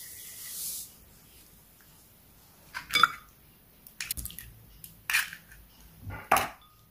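Liquid poured into a glass mixing bowl, a short splashing hiss, then eggs knocked against the bowl and cracked in: a few sharp taps and wet drops spread over the next few seconds.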